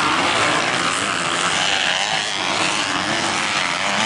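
Motocross bikes racing on a dirt track, several engines revving up and down over one another.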